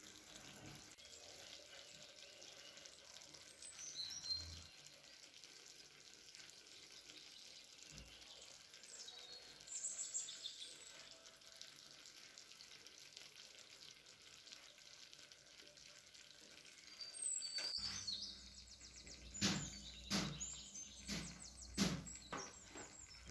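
Quiet kitchen handling as carrot sticks and potato wedges are set into a clay tagine, over a low steady hiss with a few faint high chirps. In the last few seconds comes a run of sharp knocks and clacks, several about a second apart.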